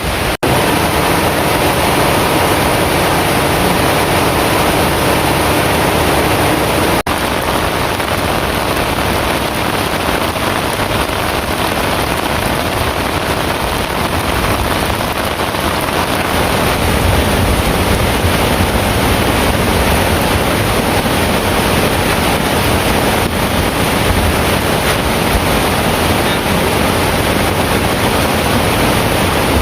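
Heavy rain falling steadily, a dense, even rush of water noise.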